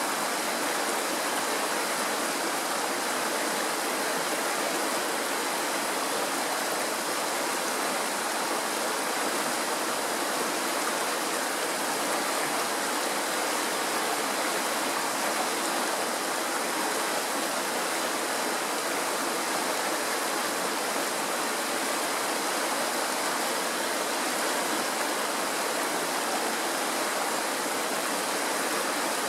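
Shallow mountain stream rushing and splashing over rocks in small white-water rapids, a steady, unbroken rush of water.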